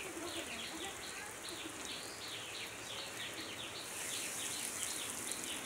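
Breaded egg-potato chops sizzling in hot oil in a frying pan, the sizzle growing louder about four seconds in as another chop goes into the oil. A rapid, evenly repeated chirping, about three or four a second, runs underneath.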